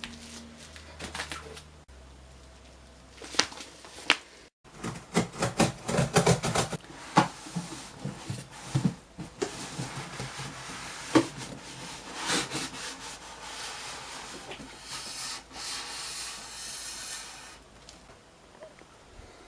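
Computer parts and their packaging being handled and unpacked: cardboard and plastic rubbing and scraping, with a few sharp knocks and clicks.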